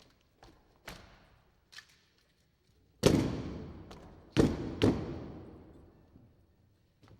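A few faint taps, then three loud thuds echoing in a large hall: the first about three seconds in, two more close together about a second and a half later, each dying away slowly.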